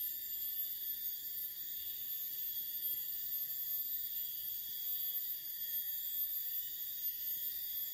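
A steady chorus of insects in dense tropical garden undergrowth: several high-pitched tones held together without a break.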